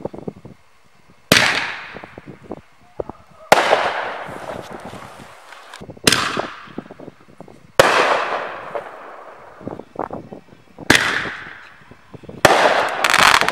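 FPAS 15 'Kanonada' mortar firework shells launching and bursting: about seven sharp bangs a second or two apart, each with a long echoing tail, with faint crackling between them.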